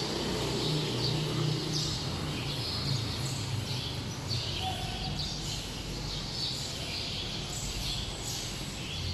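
Small birds chirping over and over, with a steady low hum underneath.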